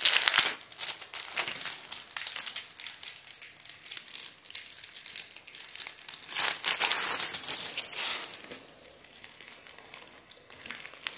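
Thin plastic crinkling and crackling as a party tablecloth made of very thin plastic is unwrapped from its clear plastic bag and unfolded by hand. It is loudest at the start and again around six to eight seconds in, then goes on as fainter rustling.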